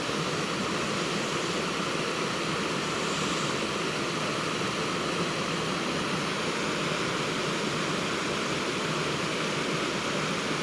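River water rushing with a steady, even noise.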